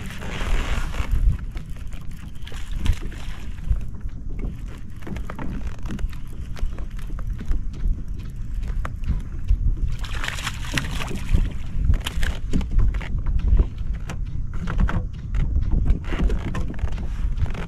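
Wind buffeting the microphone on a kayak on open water: a loud, uneven rumble, with a few short bursts of hiss from water around the hull.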